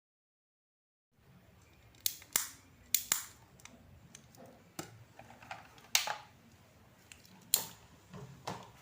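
A silent gap of about a second, then a string of irregular sharp clicks and knocks, several to a few seconds apart, with the sharpest about halfway through and near the end.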